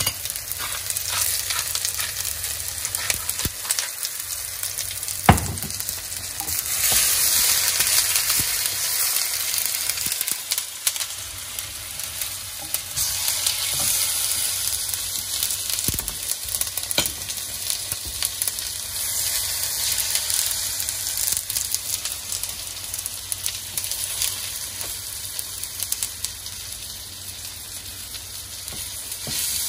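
Food frying in a pan: a steady crackling hiss with scattered small clicks, one sharper knock about five seconds in, and a louder spell a few seconds later.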